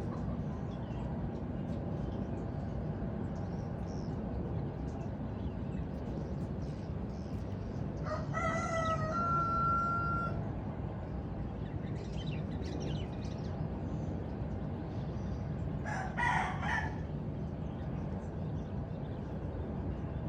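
Rooster crowing once about eight seconds in, the crow ending in a long held note, then a second, shorter and harsher call about sixteen seconds in. A steady low rumble of background noise runs underneath.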